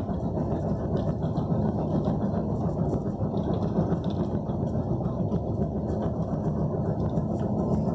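Steady running rumble of a moving vehicle heard from inside the cabin, with faint light rattling over it.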